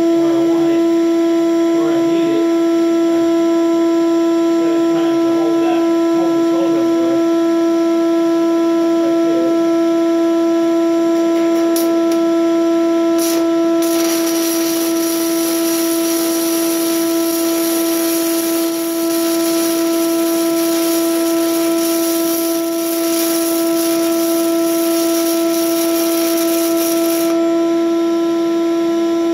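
Shop vac motor running steadily with a constant droning whine, used as welding fume extraction. After two short arc strikes about 12 and 13 seconds in, a stick welding arc with a 6011 rod crackles and hisses for about 13 seconds, then stops.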